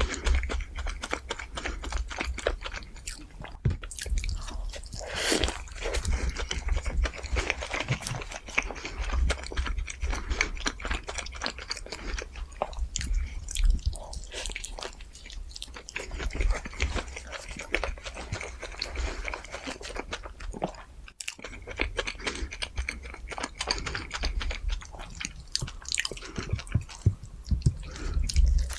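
Close-miked eating of fast food: crunchy bites and chewing that carry on irregularly, with a brief cut about two-thirds of the way through.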